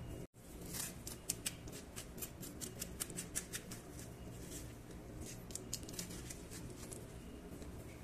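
Metal spoon scooping the seeds and stringy pulp out of a peeled canary melon half: a run of quick, soft, wet clicks and scrapes, thickest in the first half.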